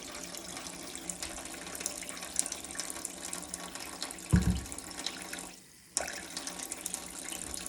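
Sink tap running steadily, a continuous hiss of water. About four and a half seconds in there is a short, louder low-pitched sound. Just before six seconds the sound briefly drops almost to silence, then the running water returns.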